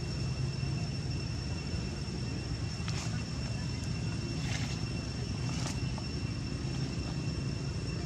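Steady low outdoor background rumble, with a faint constant high-pitched tone over it and a few brief faint chirps or clicks between about three and six seconds in.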